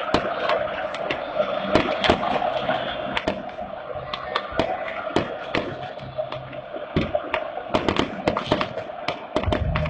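Fireworks and firecrackers going off in the stadium, sharp cracks at irregular intervals that come thicker near the end, over a steady din of the crowd in the stands.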